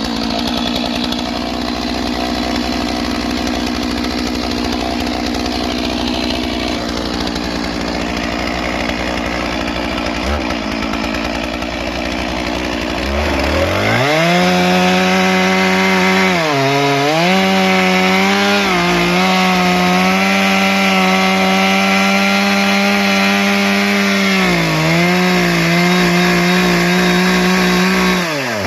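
Stihl MS 461 two-stroke chainsaw running through a cut. About halfway through it revs up to a high, steady pitch with a couple of brief dips, then the throttle is let off near the end.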